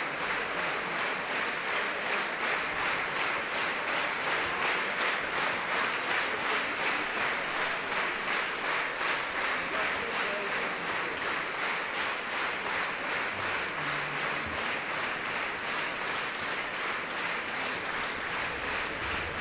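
Concert hall audience applauding, the clapping falling into a steady unison rhythm of about three claps a second.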